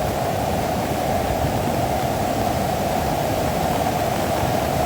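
Steady rushing of fast floodwater running high against a bridge, an even noise without a break.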